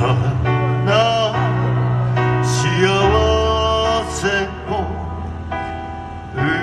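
Live music: a singer performing phrases over sustained instrumental accompaniment, somewhat quieter in the second half.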